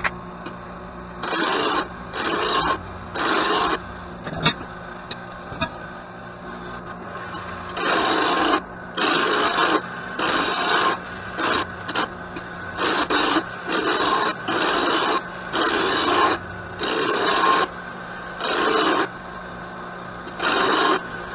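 A rock-damaged lawn mower blade being sharpened by hand with a file: a series of rasping strokes, about one a second, with a pause of a few seconds early on.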